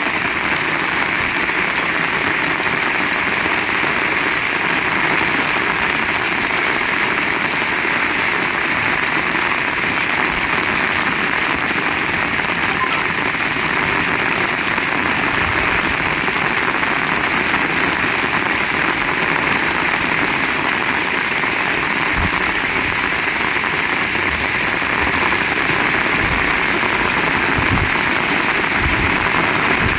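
Heavy rain pouring down in a steady, loud hiss, with a few brief low thumps around the middle and near the end.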